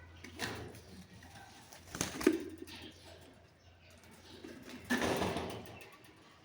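A pet parrot making scattered short calls and clicks, with a sharp knock a little after two seconds and a short harsh burst about five seconds in.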